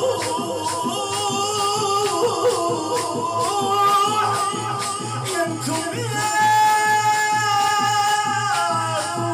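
Male voice chanting a shour latmiya (Shia mourning chant) over a steady rhythmic beat of hand strikes. The voice holds one long note about six seconds in.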